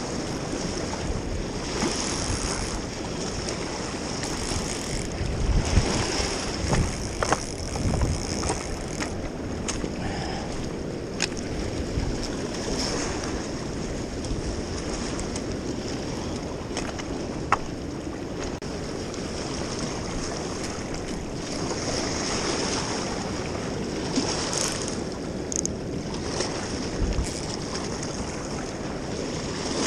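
Steady rush of flowing river water with wind on the microphone, broken by a few sharp ticks.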